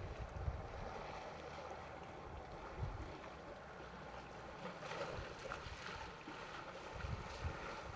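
Wind buffeting the microphone in irregular low gusts over a steady outdoor hiss.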